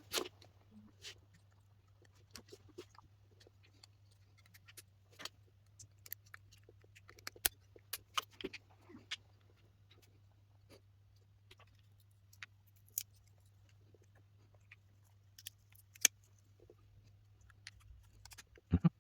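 Scattered small clicks and taps of parts and tools being handled on a workbench, the sharpest around the middle and near the end, over a faint steady low hum.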